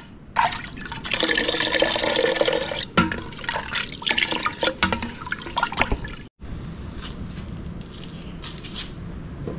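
Milk for hot chocolate sloshing and splashing in a cooking pot, with clinks of the pot and utensils as it is handled. After an abrupt cut about six seconds in, a steadier low rush with faint clicks.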